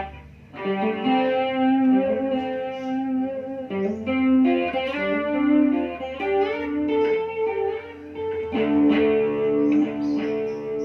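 Guitar played through a Korg AX1000G multi-effects unit, picked notes and chords ringing out as its delay effect is tested. The unit has just been repaired for noisy, dirty-sounding delay and modulation.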